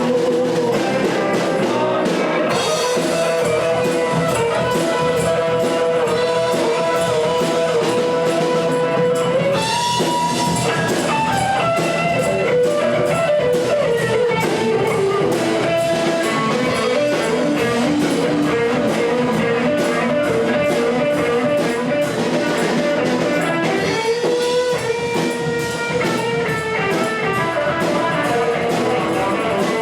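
Live rock band playing: electric guitar lines with long held notes over a drum kit.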